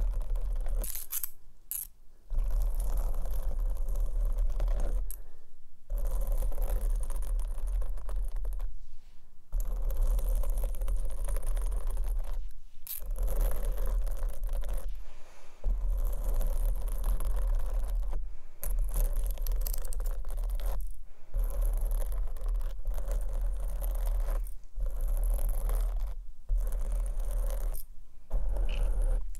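Long foil-covered claw nails scratching and rubbing on a microphone's foam cover, a loud scraping with a deep rumble, in long strokes broken by short pauses every few seconds.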